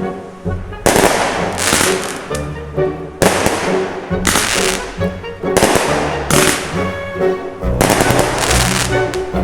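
Fireworks going off: a string of sharp bangs and crackling bursts about a second apart, over background music.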